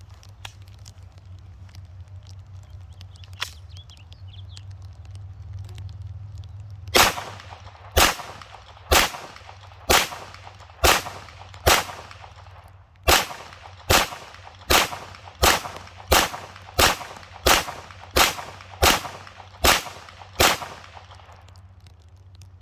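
A 9mm handgun fired 17 times at a steady pace of about one shot a second, the shots coming slightly faster toward the end; a low steady background fills the first several seconds before the first shot.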